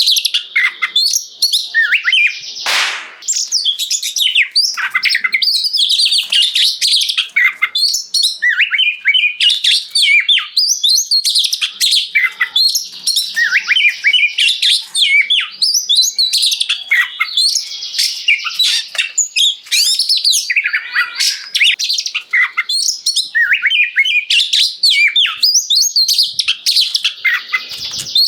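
Oriental magpie-robin (kacer) singing loudly and without pause, a rapid stream of varied whistles, trills and chirps. About three seconds in there is one brief harsh burst.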